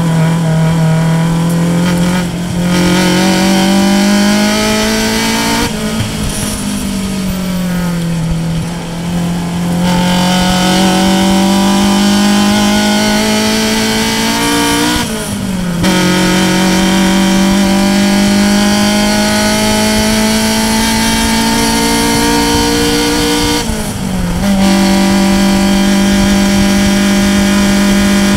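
Race car engine heard from inside the car, pulling hard at high revs with its pitch climbing. The pitch sags for a few seconds about six seconds in as the car slows for a corner, then drops sharply at two upshifts, about halfway through and again near the end.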